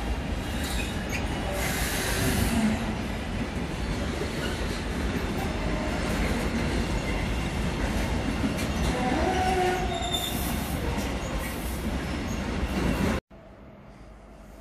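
Container freight train rolling past over station switches: wagons rumbling and rattling, with some wheel squeal on the curved track. The sound cuts off suddenly near the end.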